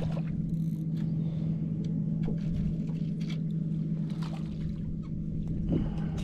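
A steady low mechanical hum at one fixed pitch, with a few faint scattered ticks over it.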